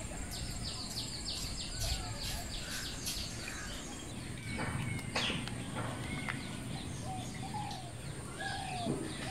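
Outdoor birdsong: a fast run of repeated high chirps, about four a second, for the first three seconds, then scattered short whistled calls. A steady very high whine and a low rumble run underneath.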